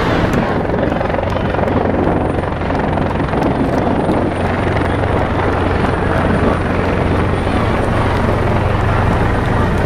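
Helicopter hovering overhead: a steady rotor and engine noise that runs without a break.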